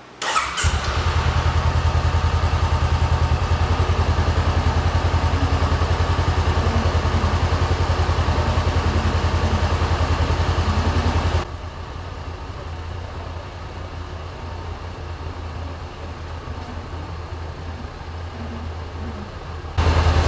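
A 2015 Honda CB500X's parallel-twin engine is started with a brief crank and catches at once, then idles steadily while it is run after an oil change to fill the new oil filter. About halfway it drops abruptly to a quieter level while still running, and near the end it comes back up to full loudness.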